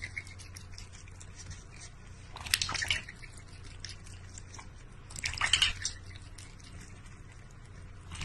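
Water lapping, dripping and splashing in a large stainless-steel bowl as a cat drinks from it, with two louder bouts of splashing about two and a half and five and a half seconds in.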